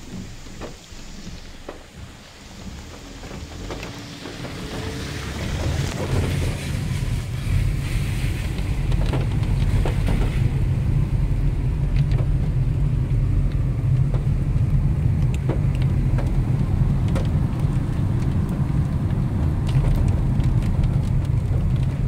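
Rain falling on a stream, then, from a few seconds in, the steady low rumble of a car driving on a wet road, heard from inside the cabin, with scattered light ticks.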